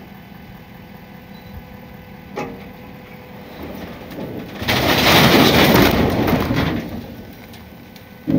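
Old cab-over truck camper sliding off the tipped-up bed of a dump trailer: a loud, long scraping rush that builds about three and a half seconds in, is loudest for about two seconds as the camper goes down onto the ground, then fades. A steady low engine hum runs underneath.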